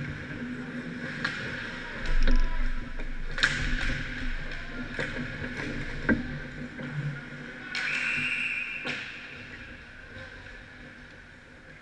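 Ice hockey play right at the goal: skates scraping on the ice and sharp clacks of sticks and puck, with a heavy thump about two seconds in. About eight seconds in, a referee's whistle blows for about a second, stopping play.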